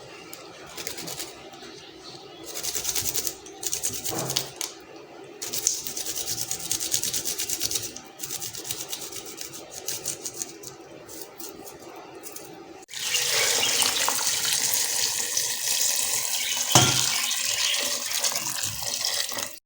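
Water running from a tap into a sink, on and off at first, then flowing steadily and louder from about thirteen seconds in until it cuts off.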